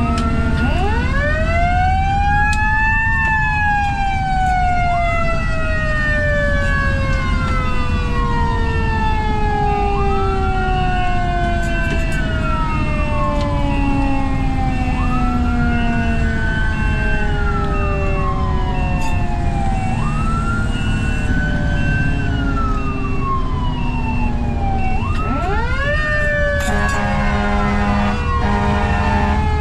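Fire truck siren: an electronic wail rising and falling about every four to five seconds over a mechanical siren slowly winding down, with the truck's engine rumbling underneath. Near the end, air horn blasts sound over the sirens.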